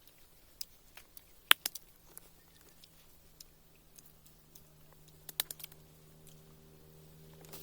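A few sharp clicks and crunches, as of someone eating: one loud click about a second and a half in and a quick cluster past the middle. A steady low hum comes in and grows near the end.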